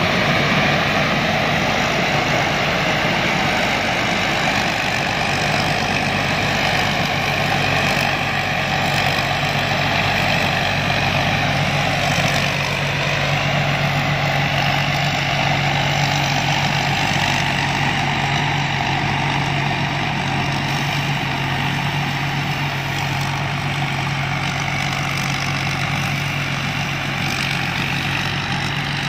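Rice combine harvester running: its engine and machinery make a steady, loud hum, with a brief dip in pitch about twelve seconds in.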